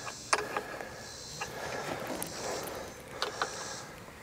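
A few faint, sparse clicks and taps of hands and tools on metal as a starter wiring connection is worked on, over a faint steady hiss.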